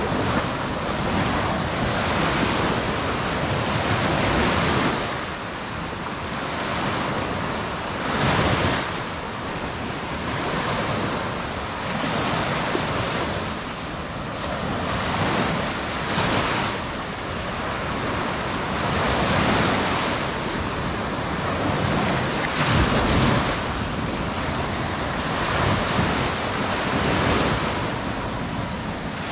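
Sea surf washing onto a beach, a continuous rush that swells and eases every few seconds, with gusts of wind buffeting the microphone about eight seconds in and again near the end.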